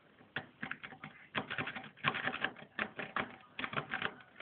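Rapid, uneven metallic clicking and rattling of a lock pick and tension wrench working inside a Ford Granada car boot lock as the plug is turned, in dense clusters that are busiest in the middle.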